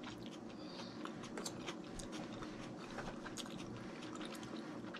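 Close-up chewing of a mouthful of escargot: many small, soft, wet mouth clicks and smacks scattered throughout.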